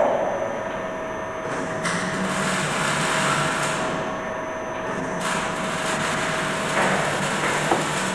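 Automatic frame-transfer machine running, its electric gear-motor drives moving a loaded steel frame along the rails: a steady mechanical running noise with a higher hiss that swells twice, and one sharp click near the end.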